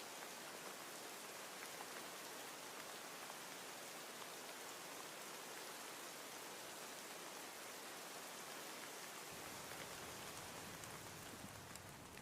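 Steady rain falling, an even hiss with faint scattered drop ticks; a low rumble comes in under it about nine seconds in.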